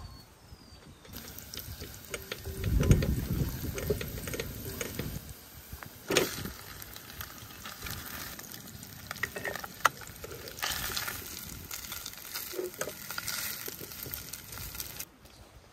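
Food sizzling in a pan with a utensil stirring and scraping and a few sharp clicks and knocks; the sizzling starts suddenly about a second in and cuts off just before the end.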